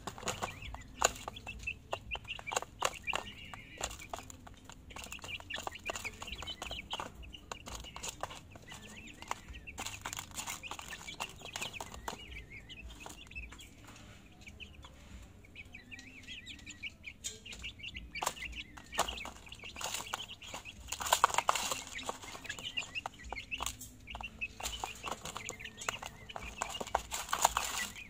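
Month-old chicks pecking dried corn from a plastic feeder tray: rapid, irregular taps of beaks on plastic, mixed with short cheeping calls. A brief louder flurry comes about three-quarters of the way through.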